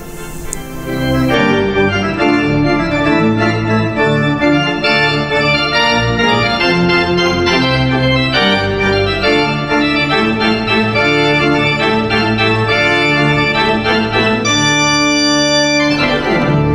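Church organ playing a loud, many-voiced piece of chords, entering about a second in. It ends on a long held chord that is released near the end and dies away in the church's reverberation.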